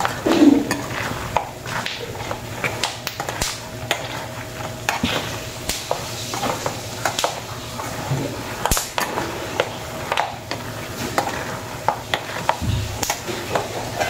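A metal slotted spoon stirring about a kilo of peanuts frying in shallow oil in an electric pot: irregular scraping and clattering of metal against the pot and the nuts, with the oil sizzling underneath.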